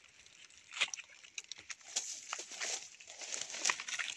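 Irregular rustling and crackling of forest undergrowth as someone moves through it, with scattered sharp snaps.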